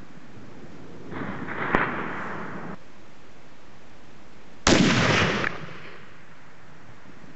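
.338 Lapua Magnum rifle fired once about two-thirds of the way in: a sudden loud report that rolls off over about a second. Before it, a fainter rumble with one sharp crack about a second and a half in, the delayed sound of the previous bullet striking the distant target.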